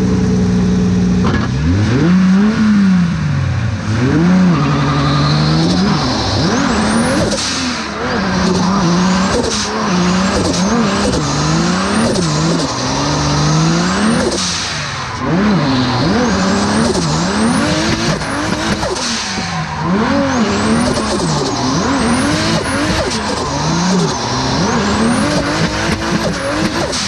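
Mercedes CLK drift car's turbocharged M104 straight-six engine revving up and down hard, again every second or two, through a drift, with tyres squealing and skidding underneath.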